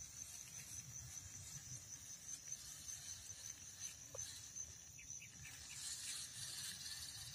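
Insects chirring steadily at a high pitch, with a low faint rumble underneath and a few brief chirps about four to five seconds in.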